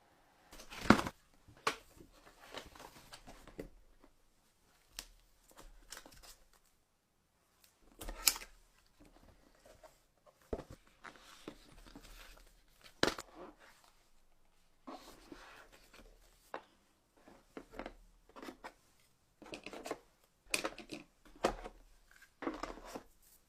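Unboxing handling sounds: phone packaging being opened and handled, with sharp clicks and taps scattered among soft rustling of card and plastic. The loudest click comes about a second in, and a quick run of taps comes near the end.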